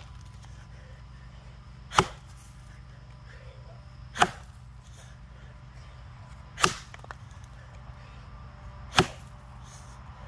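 Axe chopping into a box elder log: four sharp strikes, about one every two to two and a half seconds.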